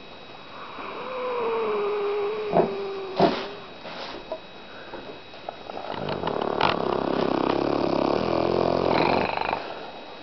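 Snoring: a whistling, slightly falling breath from about a second in, then a longer, louder rasping snore in the second half. Two sharp clicks come between them.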